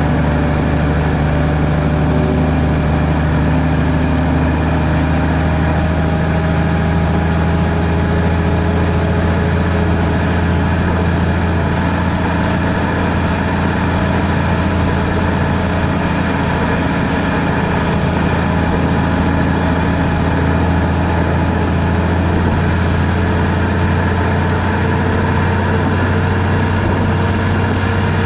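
Car engine running steadily while driving, its pitch drifting slowly up and down with a low hum and road noise underneath.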